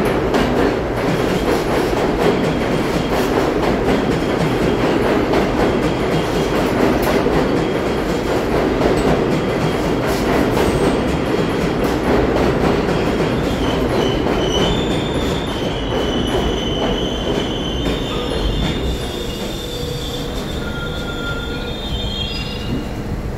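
An R62 subway train pulls into an underground station, its wheels rumbling loudly on the rails. From about halfway through, high squealing sets in as it slows to a stop. The squeal cuts off near the end.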